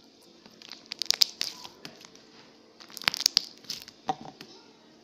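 Homemade slime being pressed and stretched by hand, giving off crackly popping clicks in two bursts, about a second and about three seconds in.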